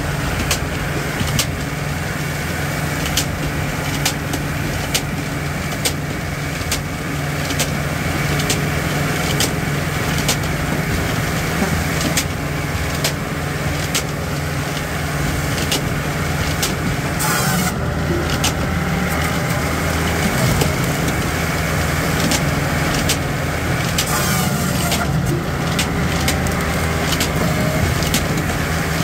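Bells 4000 firewood processor running under load: a steady engine and hydraulic drone, broken by frequent sharp cracks and knocks as ash logs are split on the 8-way wedge and the splits clatter down.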